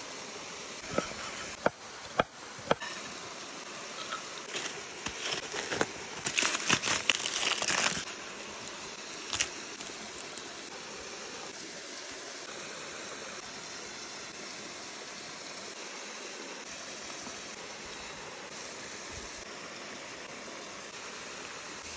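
Steady rush of a small woodland waterfall and stream. A few sharp clicks and knocks come in the first few seconds, and a loud crackly, crinkly burst comes a little over a quarter of the way in, from food being worked with wooden bowls and utensils.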